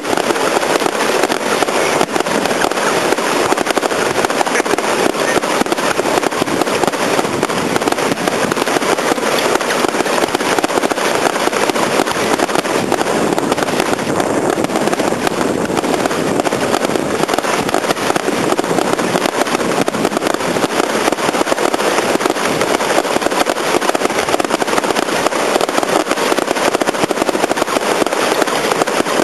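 Fireworks display: a dense, unbroken crackle and popping of many small reports running together at a steady, loud level, with no single big blast standing out.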